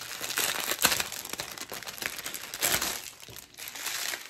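Clear plastic bags crinkling and crackling as a bundle of small bags of diamond painting drills is handled, with louder crackles about a second in and again near three seconds.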